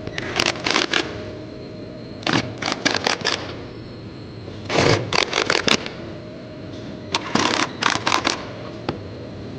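Bursts of quick, sharp clicks, several in each burst, coming about every two and a half seconds over a steady low hum. They come from hands-on work on the car during the filter change.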